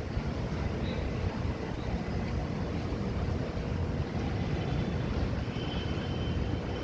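Wind buffeting the microphone as a fluctuating low rumble, with a faint high whine coming in near the end.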